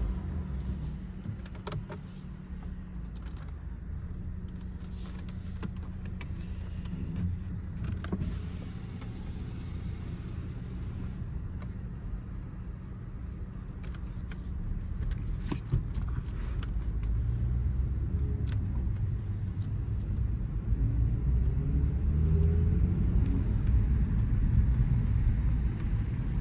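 2018 Mercedes-AMG E43's twin-turbo V6 running while driving, heard from inside the cabin along with road noise. It is a low, steady drone that grows gradually louder over the last third, with a few faint clicks.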